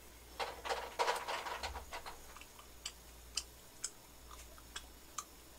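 Close-up chewing of a soft, crisp-shelled macaron: a run of small crunches for the first couple of seconds, then a few scattered wet mouth clicks.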